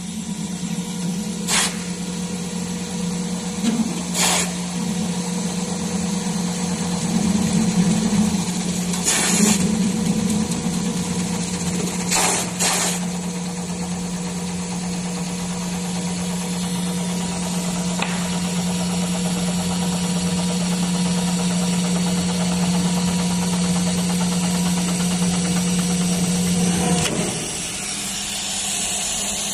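Motor of an HVAC pipe machine running at a steady pitch, with a few sharp clicks in the first half; it winds down about 27 seconds in.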